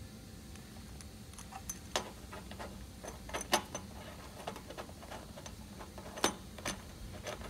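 Metal round multi-pin aviation connector being pushed into its panel socket and its locking ring twisted tight: a series of sharp metallic clicks and light rattles, loudest about halfway through and again near the end.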